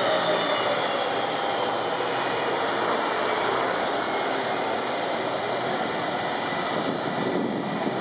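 Boeing 757's twin jet engines running at low taxi power as it taxis: steady jet noise with a high whine that falls slightly in pitch in the first second.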